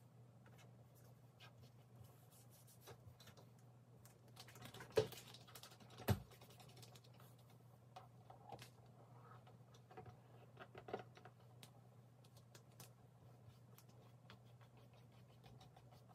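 Faint scratching and light tapping of fingers pressing and smoothing a vinyl decal skin onto the plastic top of a Roomba robot vacuum, with two louder knocks about five and six seconds in, over a low steady hum.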